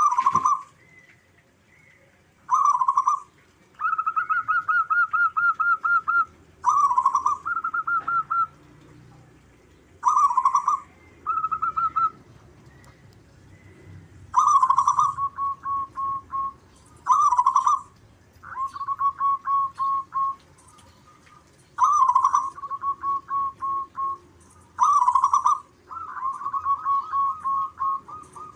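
Zebra dove (local perkutut) singing: about a dozen phrases, each a loud opening coo followed by a quick run of short, evenly spaced coos, with brief pauses between phrases.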